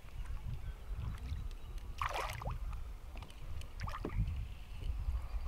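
Water splashing as a small hooked largemouth bass thrashes at the surface beside the boat while being reeled in: a sharp splash about two seconds in and a smaller one near four seconds.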